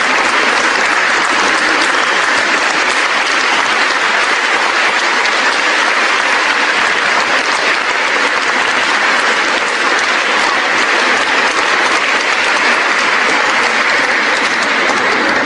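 Large crowd applauding, a dense, even clapping that holds steady without a break.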